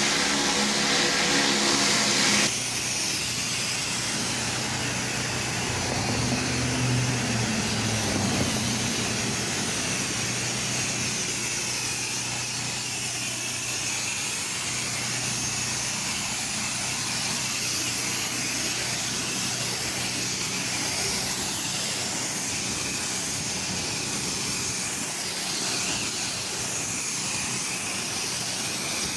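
Pressure washer running: a steady engine hum under the hiss of the high-pressure water spray. Music cuts off about two seconds in.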